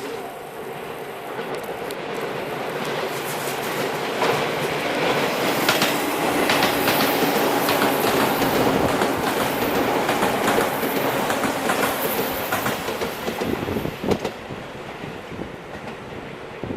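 Tobu Skytree Line train passing, its wheels clattering rhythmically over the rail joints. It grows louder over the first few seconds, stays loud through the middle and drops away about fourteen seconds in.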